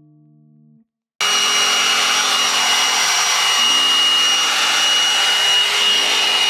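A few notes of soft guitar music, then about a second in a hot-air blow-dry brush switches on with a loud, steady rush of air and a high-pitched motor whine.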